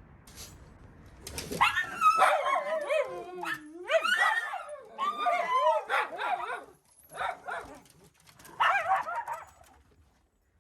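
Miniature schnauzer whining and yipping in high, wavering cries, in several bursts, stopping shortly before the end.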